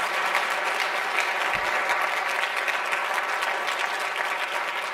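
Audience applauding, a steady clatter of many hands clapping that eases off slightly near the end.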